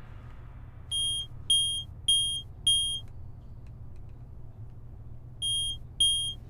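Electronic beeping: four short high beeps a little over half a second apart, then a pause of nearly three seconds, then two more near the end, over a steady low hum.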